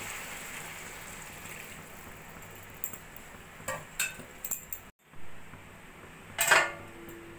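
Water poured into a hot kadai of sautéed raw papaya and potato: a hiss that fades over the first couple of seconds. Then a few light clinks and, near the end, one louder clink of a metal utensil against the pan that rings on briefly.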